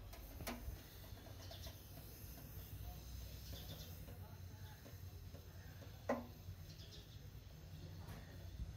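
Quiet background with a steady low hum, faint short chirps, likely birds, every second or two, and a sharp click about six seconds in.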